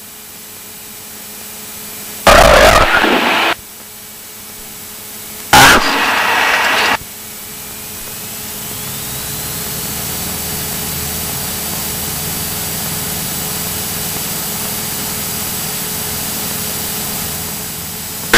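Cessna 172SP's four-cylinder engine throttled back during the landing. From about eight seconds in its pitch and level rise steadily as power is applied for a touch-and-go. Two short loud bursts break in, about two seconds in and again about three seconds later.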